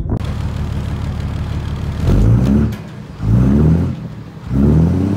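Ford F650's V8 diesel idling, then revved three times in short blips through its vertical exhaust stacks, each rev rising in pitch and dropping back to idle. The stacks' rain-cap flaps lift open with the exhaust pulses.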